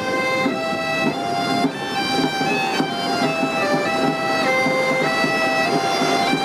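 Bagpipe-style instrumental music: a melody of short changing notes played over one steady drone note.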